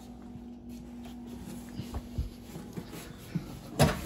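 Handling noise: a few soft knocks and rustles, then one loud bump just before the end, over a steady low hum that fades out about two seconds in.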